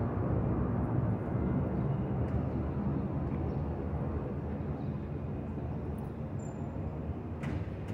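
Twin-engine jet airliner climbing overhead after takeoff, its engines a steady low rumble that slowly fades as it moves away.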